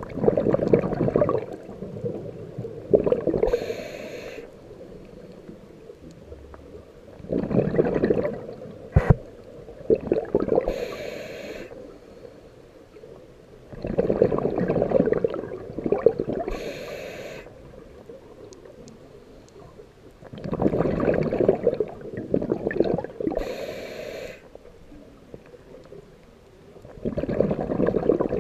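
Scuba diver breathing through a regulator, slowly and evenly: about every six to seven seconds a rumbling gush of exhaled bubbles, followed a second or two later by a short high hiss from the regulator. Five breaths in all.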